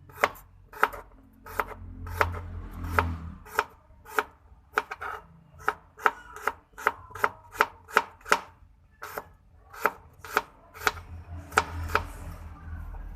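Knife chopping food on a cutting board: a steady run of sharp, slightly irregular strokes, about two to three a second.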